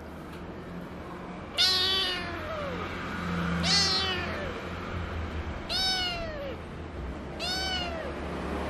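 Tabby kitten meowing four times, about two seconds apart, each call arching up and then falling in pitch. These are complaining cries at a plush doll being pushed onto its pillow.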